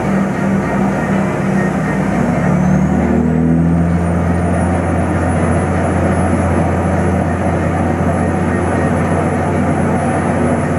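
Heavy engine on a dredge barge running with a steady low hum. It picks up about two to four seconds in, and a thin high whine rises in pitch and then holds.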